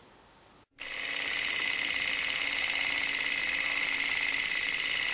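A steady, rapidly pulsing buzz starts just under a second in, after a brief near-silence.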